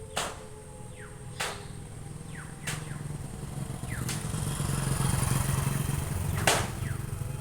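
A motor vehicle's engine hum swells and then eases as it passes. Over it come sharp clicks about once every second and a quarter, each followed by a short falling tone.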